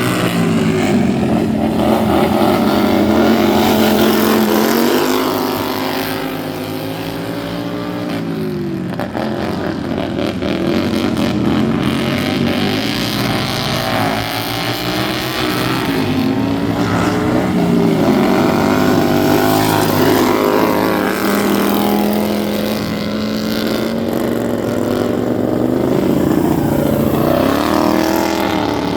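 Several racing lawn mower engines running hard together, their pitch repeatedly rising and falling as they accelerate and ease off around the track.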